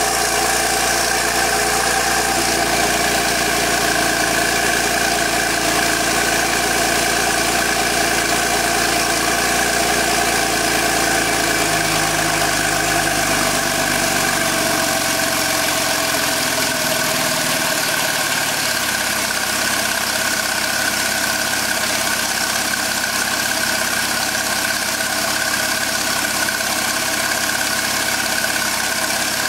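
Porsche 997.2 Turbo S twin-turbo 3.8-litre flat-six idling steadily after a cold start, heard from behind at the exhaust tips. Its low note drops a little about halfway through.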